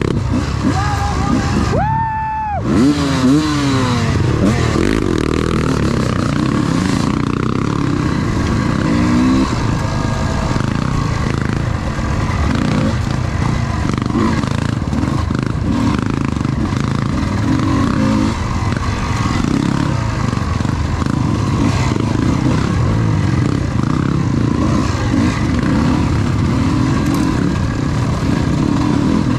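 Enduro dirt bike engine running hard and revving up and down without a break as it is ridden off-road. There is a brief, clear high tone about two seconds in.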